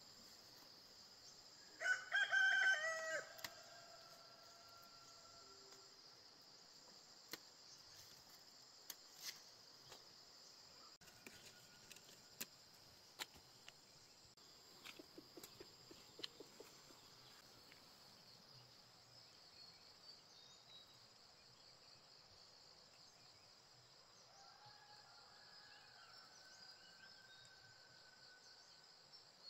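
A rooster crows once, loud and clear, about two seconds in, and a fainter crow follows near the end. Under it runs a steady high drone of insects, with a few faint clicks.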